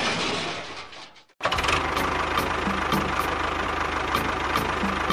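Tractor engine idling steadily with an even knocking beat. It starts after a brief silent break about a second and a half in, following a noise that fades out.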